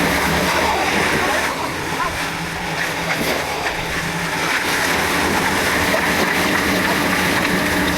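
Diesel construction machinery running steadily, a loud, dense mechanical noise with a low engine hum underneath, easing slightly a couple of seconds in.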